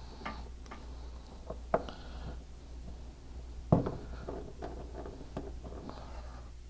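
Clicks and knocks of a round auxiliary power cable connector being handled and pushed into its port on the back of a display cabinet, the loudest knock about four seconds in, over a steady low hum.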